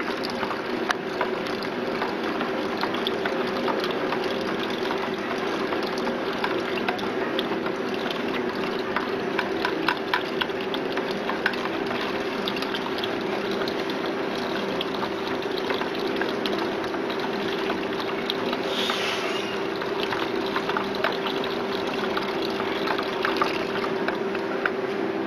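Liquid poured in a thin stream from a glass beaker into a plastic bucket of effluent and stirred with a plastic pipe, with many small splashes and knocks. A steady machine hum runs underneath.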